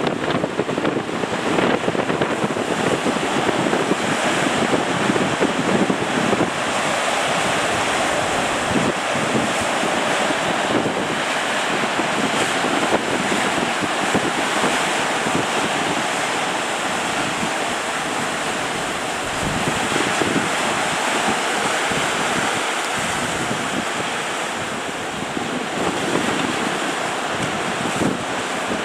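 Ocean waves breaking in a continuous, steady wash, with wind buffeting the microphone.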